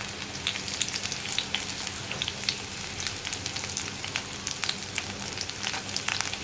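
Hot coconut oil sizzling in a cast-iron kadai as chopped ginger and whole dried red chillies fry in it, with frequent irregular sharp crackles and pops over a steady hiss.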